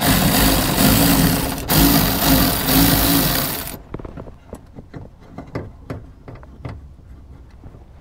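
Cordless ACDelco electric ratchet running to back out a bolt, with a short break near halfway, then stopping after about three and a half seconds. Light clicks and taps of the tool and parts being handled follow.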